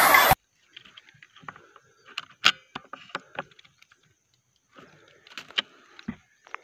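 A loud burst of music cuts off abruptly at the start. It is followed by faint, scattered clicks and rattles of an air rifle being handled, its bolt stuck. The clicks are most frequent in two clusters, around the second and third seconds and again near the end.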